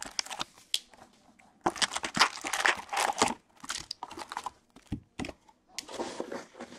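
Packs of 2019-20 Upper Deck SP Authentic hockey cards being lifted out of their cardboard hobby box and set down in stacks: crinkling of the foil pack wrappers with taps and scrapes of cardboard, in several bursts, the longest about two seconds in.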